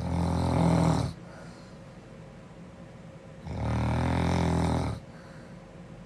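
A girl snoring: two loud, low, rattling snores, each lasting a little over a second. The second comes about three and a half seconds after the first, and a soft breath follows each snore.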